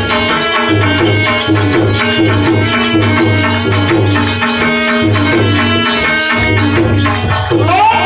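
Live stage music: a regular drum beat and rattling percussion under sustained melody notes. A voice comes in, singing with wavering pitch, near the end.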